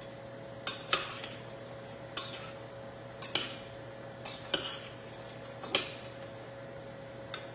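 Utensils and dishware clinking: about seven sharp, separate clinks, roughly one every second or so, over a steady low hum.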